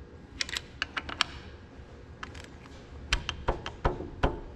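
Light, irregular clicks and taps of hand tools and metal parts being handled on a tractor diesel engine, about fifteen over four seconds, loosely bunched.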